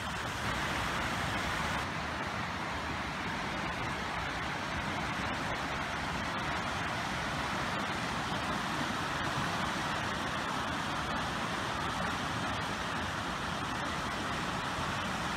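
Issaquah Creek in a minor flood, muddy floodwater rushing fast through its channel in a steady, unbroken noise.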